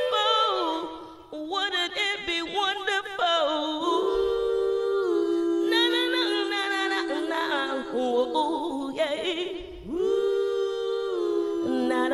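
A cappella singing: several layered voices holding long notes with vibrato, with a brief drop about a second in.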